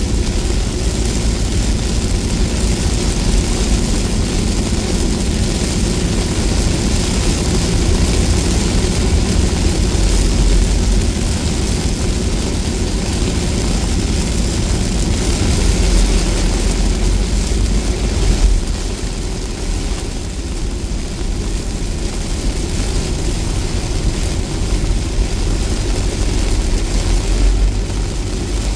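Heavy rain shower hitting a car's windshield and roof, heard from inside the cabin over the steady low rumble of the car on the highway. The noise stays loud and even, easing slightly about two-thirds of the way through.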